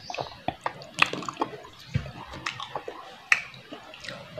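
Wet mouth smacks and chewing from eating soft, ripe soursop (guyabano) pulp: a quick string of sharp wet clicks, two of them louder, about a second in and after about three seconds.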